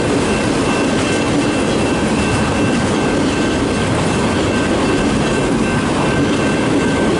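Long freight train of manifest and autorack cars rolling past at close range: a steady, loud rumble of steel wheels on rail, with two faint steady high whines.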